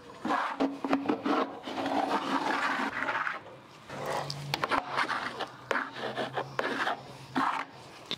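Cloth or paper towel wiping and scrubbing a wooden kennel floor in repeated rubbing strokes, with a few light knocks between them.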